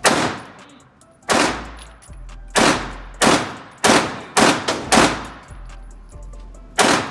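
Firearm shots fired singly, about eight in seven seconds at uneven spacing, each followed by a fading echo.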